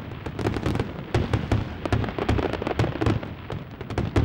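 Fireworks going off: an irregular run of sharp bangs and crackles, several a second, each with a low thump.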